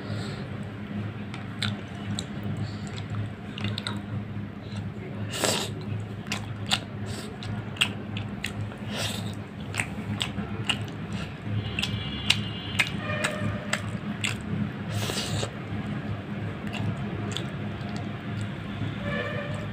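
Close-up eating sounds of someone eating fish curry and rice by hand: wet smacks and clicks of fingers working the food and of the lips, and chewing, over a steady low hum.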